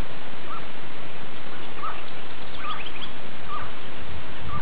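Birds calling: a short chirp repeated about once a second, with a quick run of higher rising notes near the middle, over a loud, steady rushing hiss.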